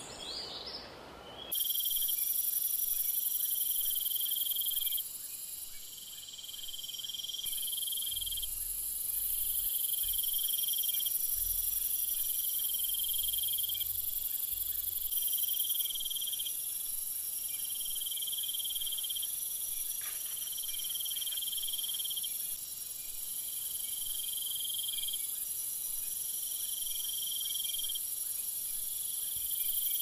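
Chorus of insects chirping: a steady high trill with a lower chirping in repeated phrases about a second long, separated by short gaps. It cuts in abruptly about a second and a half in, after a few bird calls.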